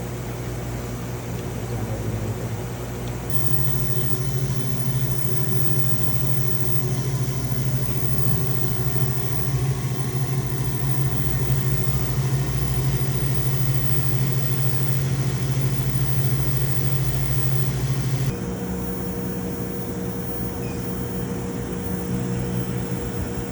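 OptiPro OptiSonic 550X ultrasonic CNC machining center running, a steady mechanical hum with a strong low tone. It grows louder and brighter about three seconds in, then drops and changes pitch abruptly near the end.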